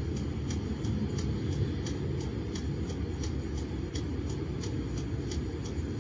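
Steady low rumble inside a passenger van's cabin, with a light, regular ticking about three times a second, the sound of the van's turn-signal indicator, heard as dashcam audio played back through a computer speaker.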